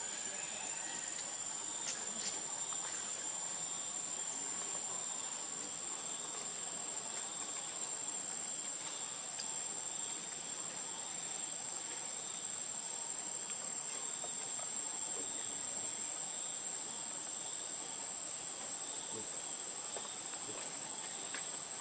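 Insects chirring in a steady, high-pitched chorus.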